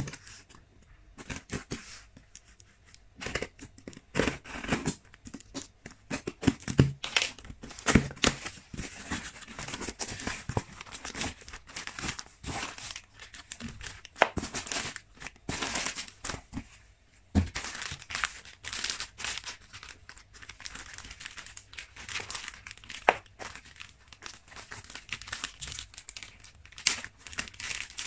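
A cardboard box being opened and clear plastic bags of tea sachets being handled: irregular crinkling, rustling and crackling of plastic, with a few sharper crackles along the way.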